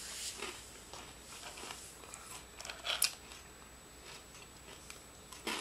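Crunchy potato-stick snack being bitten and chewed: scattered small crackles, with one sharper crunch about three seconds in.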